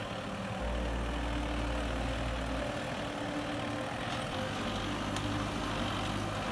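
Vehicle engine running with a steady low drone and an even rushing noise over it.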